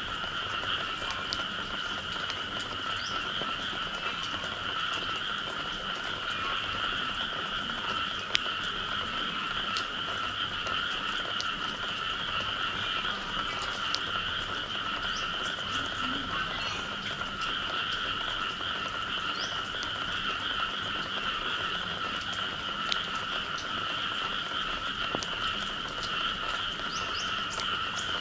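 A dense, steady chorus of many frogs calling together after rain, in a lower and a higher pitch band. A few sharp clicks are scattered through it; the loudest comes about eight seconds in.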